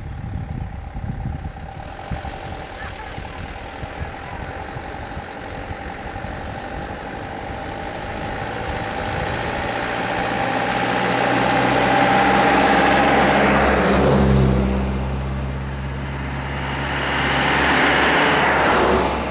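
Minibus engine and tyres approaching and passing close by, loudest about two-thirds through, then a second bus passes right alongside near the end.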